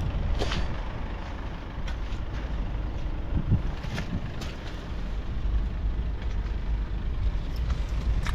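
A vehicle engine running steadily with a low rumble, with scattered clicks and knocks over it.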